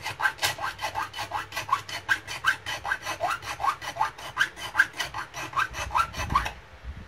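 Quick back-and-forth scraping strokes, about five or six a second, as a sharp edge on a thin metal can is smoothed by hand. The strokes stop abruptly about six and a half seconds in.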